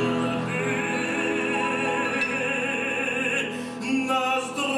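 A man singing in an operatic style with a wide vibrato on held notes, accompanied by piano; the sung notes change about three and a half seconds in.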